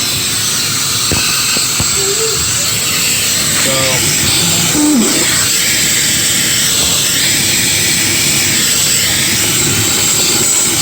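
Shop vacuum running steadily, sucking up metal drill shavings.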